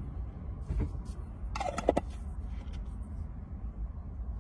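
Low steady hum inside a car cabin, with a faint knock about a second in and a short, falling, voice-like murmur just before two seconds in.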